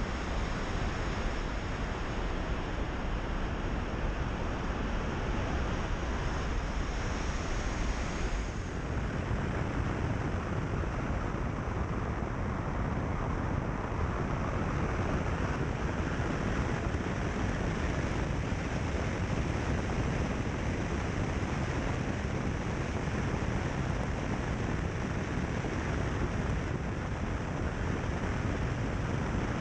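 Car driving at a steady pace along a gravel road: a continuous rumble of tyres on gravel mixed with wind and engine noise.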